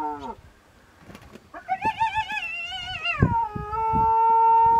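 Sub-adult spotted hyena trapped inside an elephant carcass, shrieking and howling in terror as lions harass it. A falling wail breaks off just after the start. About a second and a half in comes a high, quavering shriek, which drops about three seconds in into a long, steady howl.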